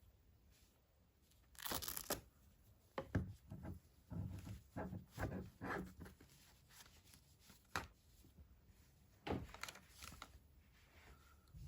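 Toy packaging being torn open and handled. A sharp tear comes about two seconds in, then a run of short rips and rustles, and a few more tears near the end.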